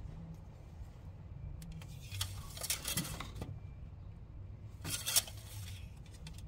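Metal parts being handled: two short bursts of scraping and clinking, the second one briefly louder, over a low steady rumble.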